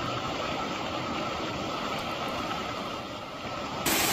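Steady rain falling, a dense even hiss. About four seconds in it switches abruptly to a louder, brighter rush of rain.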